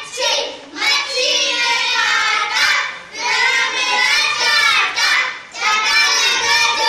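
Young children singing together, in phrases broken by short pauses.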